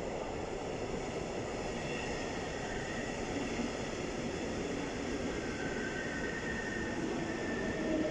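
Berlin S-Bahn electric train running, heard from inside the carriage: a steady rumble of wheels on the track with faint high tones.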